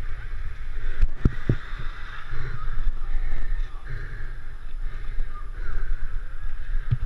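Inline skate wheels rolling on asphalt, a steady rumble with wind buffeting the microphone, and a few short knocks about a second in.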